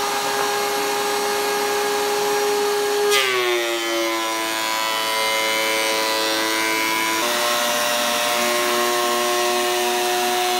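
DeWalt DW735 thickness planer running with a steady high whine. About three seconds in the pitch drops as a board feeds into the cutterhead and the knives start taking a 1 mm pass. Past the middle the tone shifts again while the planing goes on.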